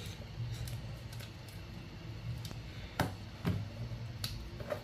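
Low steady hum under a few light clicks and ticks, the clearest about three seconds in: workbench room tone.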